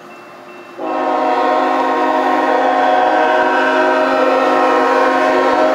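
Air horn of an approaching Norfolk Southern GE ET44AC freight locomotive, sounded in one long, steady blast that starts abruptly about a second in and is held nearly to the end.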